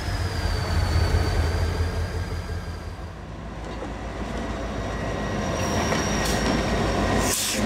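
EMD GP30 diesel locomotive running, a deep engine rumble under a high whine from its freshly replaced turbocharger. About three seconds in the sound changes to the locomotive hauling passenger cars past, with rail noise and a thin steady squeal from the wheels.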